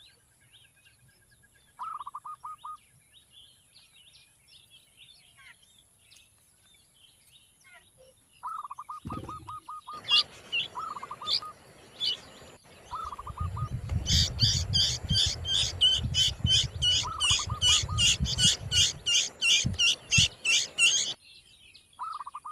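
Birds calling: a short, quick trill that repeats every few seconds, then from about 14 seconds a fast run of loud, high chirps, about three a second, lasting some seven seconds over a low rumble.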